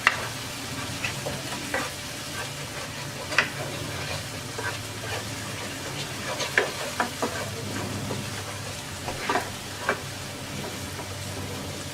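Ground spice paste sizzling in hot oil in a pan as it is stir-fried, with scattered scrapes and taps of the stirring spoon against the pan.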